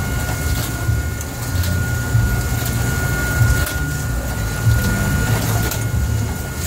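A longline fishing boat's engine and hydraulic machinery running steadily: a low rumble with a thin steady whine over it, and a few short clicks.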